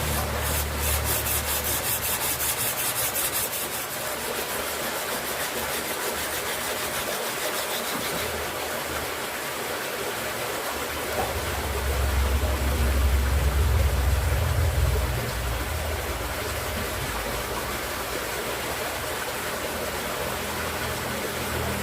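Steel being ground or sanded with a steady rasping noise. It grows louder and deeper for a few seconds about halfway through.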